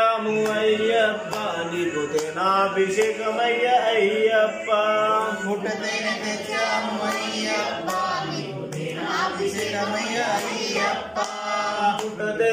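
Several voices singing an Ayyappa devotional bhajan together in a chanting style, without a break.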